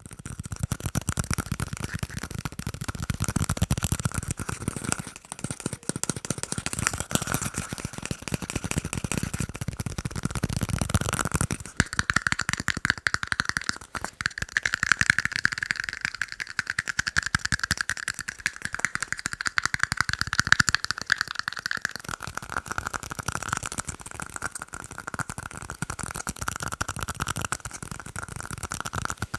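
Fast tapping on tiny cups: a dense, continuous run of rapid clicks with a ringing tone from the cups, which grows stronger and a little higher about twelve seconds in and eases back near twenty-two seconds.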